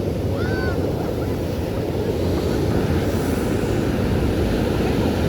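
Steady rush of ocean surf mixed with wind buffeting the microphone, holding at an even level, with a couple of faint short chirps about half a second in.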